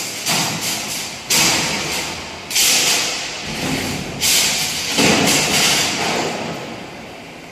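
Electric arc welding on the cracked steel plate of a mechanical parking lift: short tack welds, a series of about five hissing bursts that each start suddenly and last around a second, dying away near the end.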